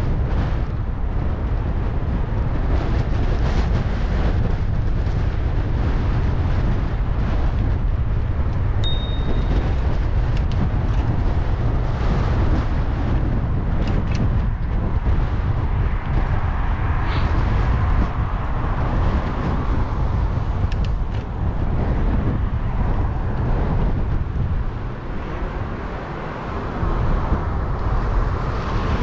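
Steady wind buffeting a GoPro's microphone during a bicycle ride, with occasional short clicks and rattles.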